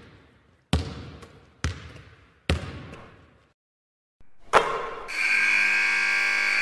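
Intro sound effects for an animated logo: three thumps about a second apart, each dying away, then a sharper hit, then a held synth chord from about five seconds in.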